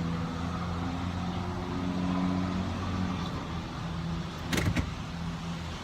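Car engine running steadily, heard from inside the cabin, with two sharp clicks about four and a half seconds in.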